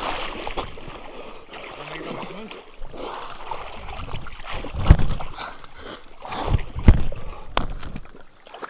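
Camera handling noise as it is jostled and tumbles on a wet, muddy bank: rustling and scraping with water splashing, and several heavy knocks about five seconds in and again near seven seconds.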